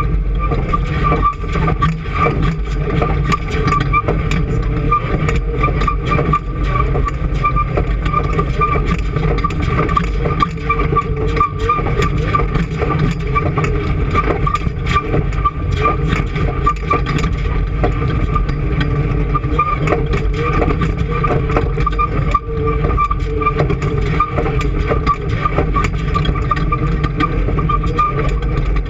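Engine running steadily at constant speed, with a steady whine over the rumble and many small clicks and rattles.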